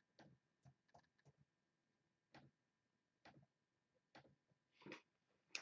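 Near silence broken by faint, irregularly spaced clicks of a computer mouse, about eight or nine in all. There is a short soft rustle near the end.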